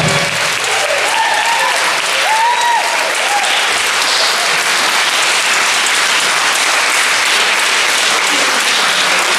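Audience applauding, steady and dense, with a few whoops in the first few seconds.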